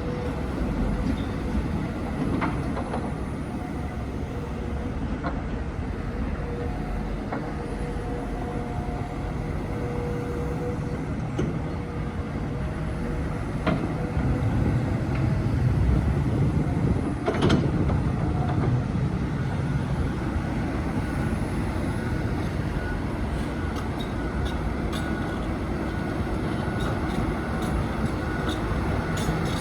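Heavy construction machinery running with a steady engine rumble and a few sharp metallic clanks; it grows louder for a few seconds midway.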